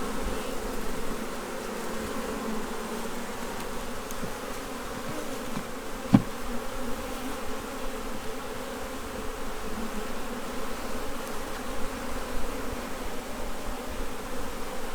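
Steady hum of many honey bees buzzing over an opened hive. A single sharp knock sounds about six seconds in.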